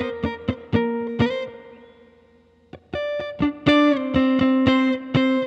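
Electric guitar rhythm part, recorded clean and direct, then reamped through a Fender tube amp with its spring reverb. Short strummed chord stabs ring out into a brief lull about a second and a half in, then resume.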